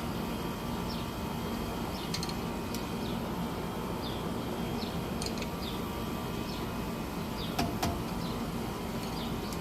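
Short falling bird chirps repeating about once a second over a steady low background hum, with two sharp metallic clinks about three-quarters of the way through.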